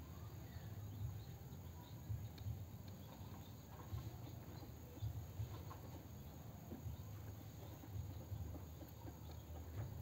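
Quiet background noise with an uneven low rumble and a few faint ticks, as a stone is held and turned close to the microphone.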